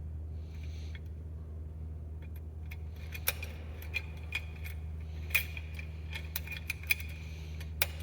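Scattered light metallic clinks and jingles over a steady low hum, the clinks coming more often from about three seconds in.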